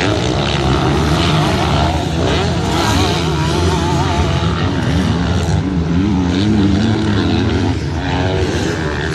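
Several MX2 motocross bikes running on the track, their engines revving up and down in quick wavering pitch as riders throttle through the course.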